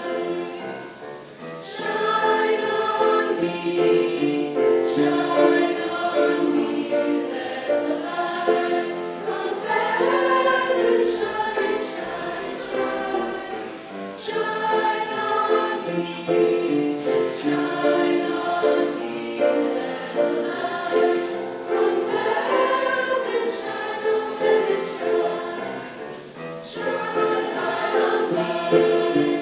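A mixed high school chorus singing in parts, the phrases joined by brief pauses for breath.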